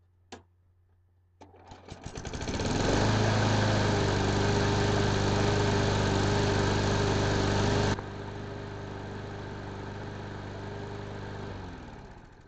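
Craftsman lawn mower engine starting up, catching within about a second and running steadily. About eight seconds in it becomes noticeably quieter, and near the end it shuts off and winds down. It fires right up and runs after a carburetor cleaning and rebuild kit have cured its no-start.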